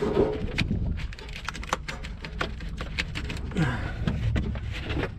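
Irregular sharp clicks and knocks of a ratchet, socket and extension being fitted and worked on a seized oxygen sensor in the exhaust, over low handling rumble.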